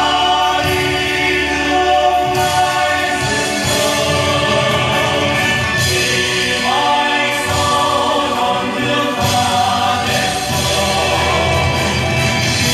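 Choir singing a Vietnamese song in praise of the homeland over instrumental accompaniment, steady and loud throughout.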